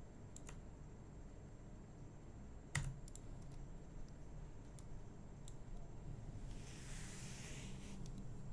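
Scattered sharp clicks of a computer mouse and keyboard in use, about eight spread irregularly over several seconds, the loudest a little under three seconds in. A soft hiss lasting about a second and a half comes near the end, over a low steady room hum.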